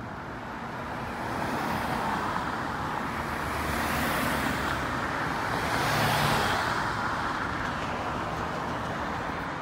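Street traffic: cars driving past one after another, with engine and tyre noise swelling as a car passes close about four seconds in and again, loudest, about six seconds in.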